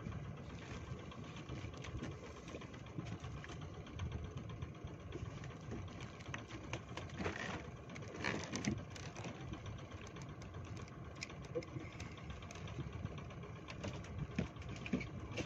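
Spinning reel being cranked to wind in the line after a lost fish, a steady mechanical whirring over a low engine hum.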